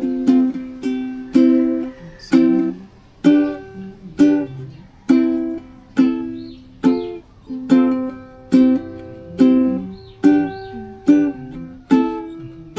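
Cordoba UP100 ukulele strummed in a steady rhythm, about two strokes a second. Each chord rings out and fades before the next.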